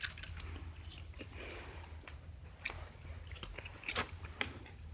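Gum chewing close to the microphone: faint, irregular soft clicks and smacks, with a sharper click about four seconds in.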